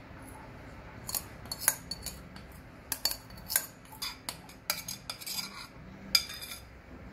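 Metal spoon scraping thick batter out of a bowl onto cauliflower florets in a stainless steel bowl, with a string of irregular sharp clicks and short scrapes as the spoon knocks against the bowls.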